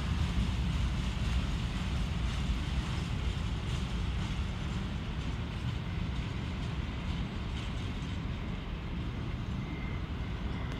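Freight train's wagons rolling away along the tracks, a low rumble slowly fading.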